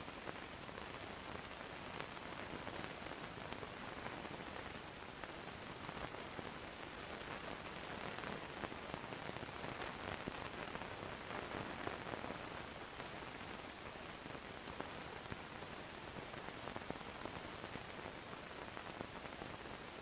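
Steady hiss with scattered faint clicks and crackle, a little louder in the middle: the surface noise of an old 16mm film print's blank soundtrack played back with a silent film.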